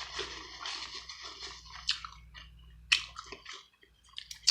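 Close-miked chewing and biting of seafood boil food: a wet, crackly eating sound with a few sharp clicks, dropping nearly quiet about three and a half seconds in.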